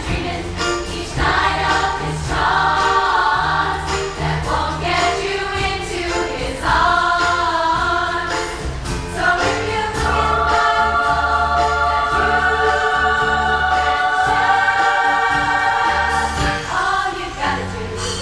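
Large mixed choir singing with a live orchestra accompanying, strings and bass underneath. About ten seconds in the voices settle onto a long held chord that lasts until near the end.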